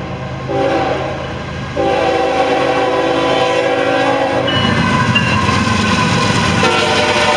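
Diesel locomotive air horn of a GE Evolution-series freight locomotive sounding a chord in long blasts, over the rumble of the train. The horn gets louder about two seconds in, breaks off about halfway through and sounds again near the end.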